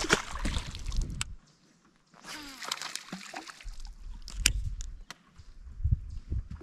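Water sloshing against a small boat's hull, with a low rumble and a few sharp clicks, the loudest about four and a half seconds in. It drops almost to silence briefly, about a second and a half in.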